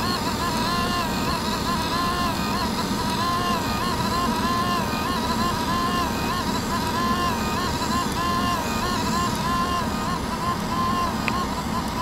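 Testo 0554.0547 thermal printer printing out a measurement report. Its paper-feed mechanism makes a whine that rises and falls in a regular repeating pattern, over a steady low rumble.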